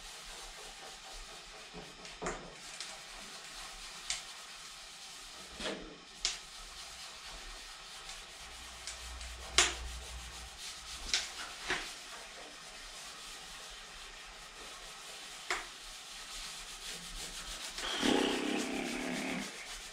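A hand rubbing and smoothing the transfer paper of a vinyl decal onto a car fender. There are scattered sharp clicks at first, then about two seconds of louder, steady rubbing near the end.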